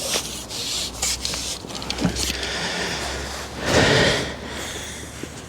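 Water splashing and sloshing as a hooked F1 carp is drawn into a landing net, with scattered clicks of tackle handling and one louder splash about four seconds in.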